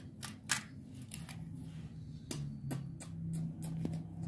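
Toy cars being handled on the floor: a string of sharp clicks and clacks as they are moved and set down, the loudest about half a second in, over a steady low hum.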